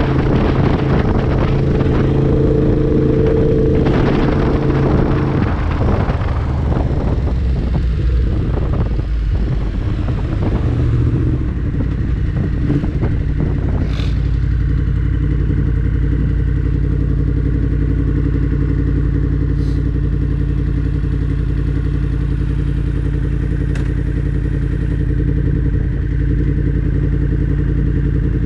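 2019 Yamaha MT-10's crossplane inline-four engine running with wind rush while riding, then easing off as the bike slows. A little before halfway it settles into a steady idle.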